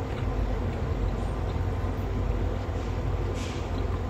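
Steady low mechanical hum filling the kitchen, with a metal fork scraping lightly on a ceramic plate about three seconds in.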